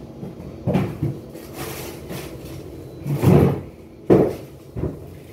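Kitchen cupboard doors and drawers being opened and shut: several knocks and thuds, the loudest around three and four seconds in.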